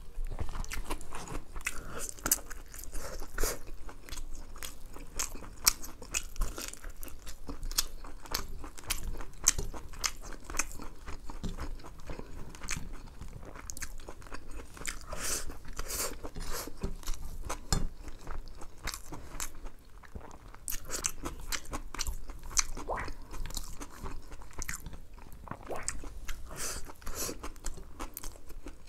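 Close-miked chewing and wet mouth sounds of a man eating chicken biryani by hand: a continuous run of quick, irregular smacks and clicks.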